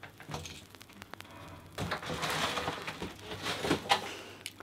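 Rummaging in a drawer: scattered light clicks and knocks, with two short stretches of rustling about two seconds in and again near three and a half seconds, as things are handled.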